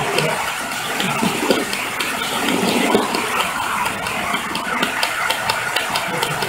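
HO-scale model freight wagons rolling past close by: a steady rolling rumble of wheels on the rails, with many quick clicks as the wheels cross the track joints.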